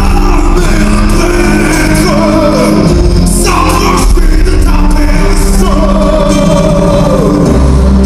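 Male singer performing a slow musical-theatre ballad over loud amplified band accompaniment. The sustained vocal line glides between notes.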